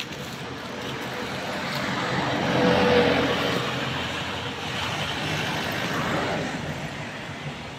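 A road vehicle passing by: its noise builds to a peak about three seconds in, then slowly fades away.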